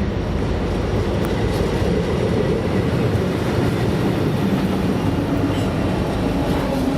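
BNSF freight train rolling past: a steady rumble and rattle of steel wheels on the rails.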